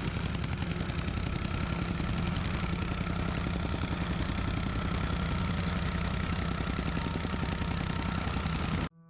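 An engine running steadily at an even speed, with a fast, even pulse in its low end; it cuts off suddenly near the end.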